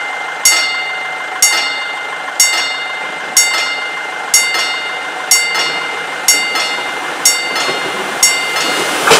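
Level-crossing warning bell ringing with evenly spaced strokes, about one a second, each ringing out briefly. Under it the Bombardier Talent BR 643 diesel railcar approaches, and its noise starts to swell at the very end.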